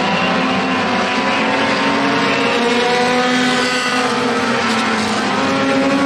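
Several four-cylinder Super 4 dirt-track race cars running around the oval, their engine notes overlapping and rising and falling in pitch as they pass.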